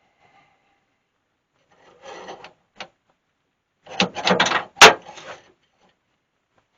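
Scraping and rattling as a part is worked loose from the lathe, with one short scrape about two seconds in and a longer rasping rattle about four seconds in, ending in one sharp knock as the part pops out.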